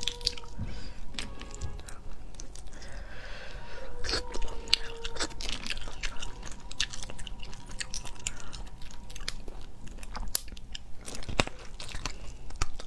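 Cooked crab shells cracking and crunching as claws are pulled apart by hand, with chewing and many sharp clicks close to the microphone.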